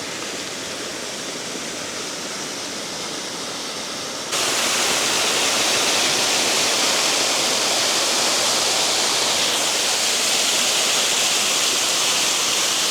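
Steady rush of a flowing mountain stream. It gets louder about four seconds in, at a cut.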